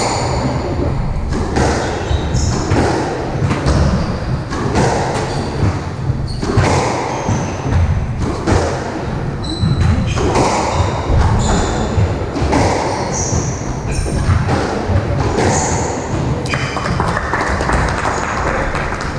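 Squash ball knocks from racket hits and front-wall impacts, with rubber-soled shoes squeaking on the wooden court floor, echoing in the enclosed court.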